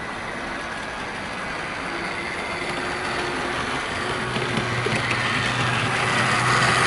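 Heljan Class 17 Clayton model locomotive running on the track with six coaches in tow: the electric motor whirring, with wheel noise on the rails, growing steadily louder as it approaches. A low hum and a higher whine come in from about four seconds. The motor is a noisy one.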